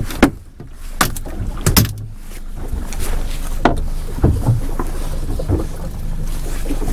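Several sharp knocks and thumps from a freshly netted king salmon being handled in the landing net on a boat deck, over the steady low hum of the boat's engine.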